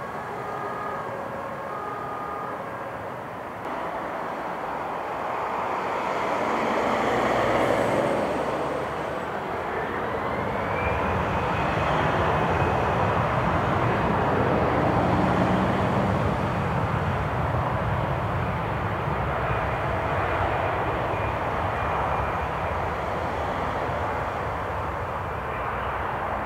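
Jet airliner's engines: a roar that builds over several seconds and stays loud, with a whine that rises in pitch and then holds steady.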